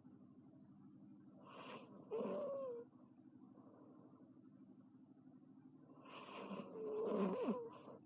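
A girl snoring loudly, two snores about four seconds apart. Each is a rasping breath with a wavering, bending tone in it.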